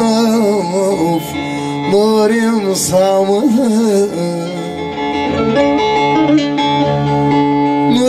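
Bağlama (Turkish long-necked saz) being played while a man sings a Turkish folk song over it in long, wavering, ornamented phrases.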